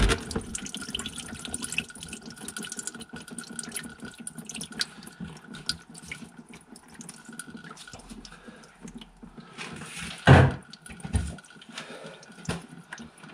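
Engine coolant running and dripping out of a VW T5's radiator through the opening left by the bottom sensor, with many small splashes as it drains. A brief loud thump about ten seconds in.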